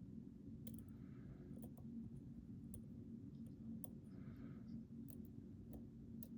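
Faint, irregular small clicks of a lock pick working the pins inside a Mul-T-Lock Interactive lock cylinder, with a few soft scrapes, over a steady low hum.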